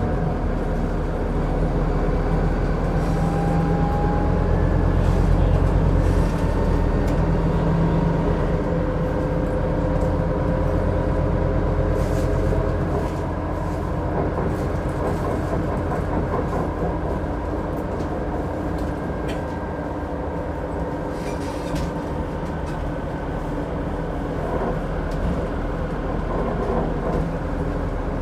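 Scania Citywide city bus running, its diesel engine and drivetrain heard from inside the passenger cabin as a steady low drone with a faint whine. It eases off a little after about six seconds and again about halfway through, with a few brief rattles.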